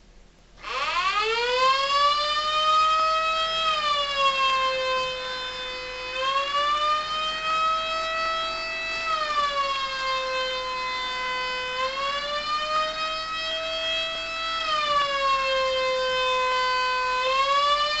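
Homemade Megablaster Jr. mini tornado siren sounding an attack signal through its four speaker horns while it rotates. It comes on about half a second in with a fast rise in pitch, then wails in a slow wavering rise and fall, a few seconds per swing.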